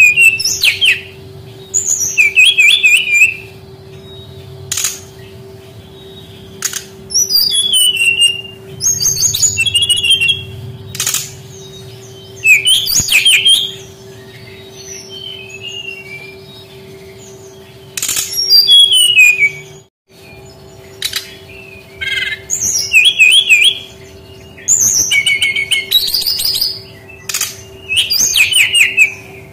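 Brown-chested jungle flycatcher singing: short, rapid warbled phrases about a second long, repeated every couple of seconds with single sharp notes between them, over a steady low hum. Everything drops out briefly about two-thirds of the way through.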